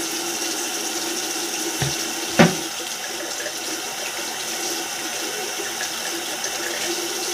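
Bathroom sink tap running steadily, the water set to medium, neither cold nor hot. One sharp knock about two seconds in.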